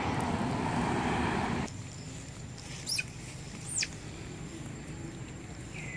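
A steady rushing outdoor noise cuts off abruptly after about a second and a half. Then come two short, high-pitched squeaks about a second apart, each sweeping quickly down in pitch.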